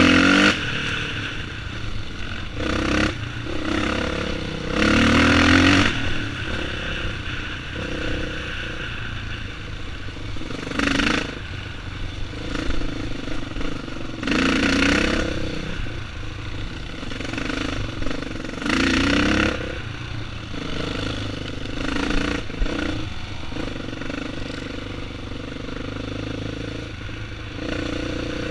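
Dirt bike engine under way on a rough trail, running steadily with the throttle opening into louder revs every few seconds.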